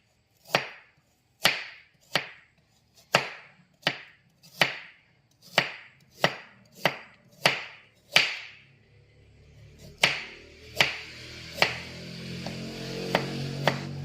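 Kitchen knife slicing ginger thinly on a cutting board, a steady series of sharp chops about one and a half a second. After a short pause near the middle the chops go on, more spaced out, as background music comes in.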